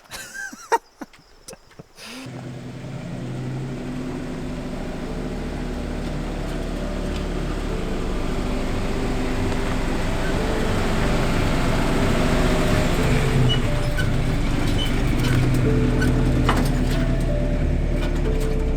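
Background music fading in about two seconds in and growing steadily louder, with a vehicle engine running under it.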